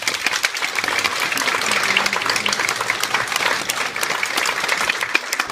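Audience applauding: a dense, steady patter of many hands clapping at the end of a ballet number.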